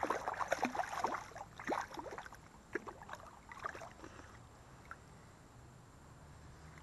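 Creek water splashing and sloshing in irregular bursts that die away after about four seconds, leaving only a faint steady low hum.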